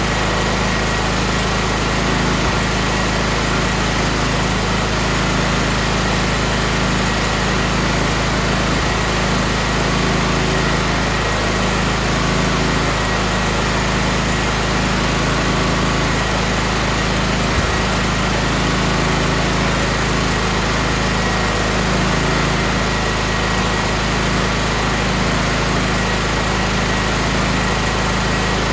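A tractor engine running steadily at a constant speed.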